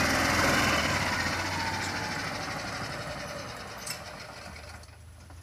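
Golf cart engine running as the cart drives off, the sound fading steadily as it moves away.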